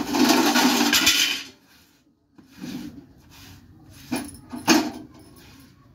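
Steel kitchen utensils being handled during washing-up: a loud rushing scrape lasting about a second and a half, then a few clinks and two sharp clanks near the end.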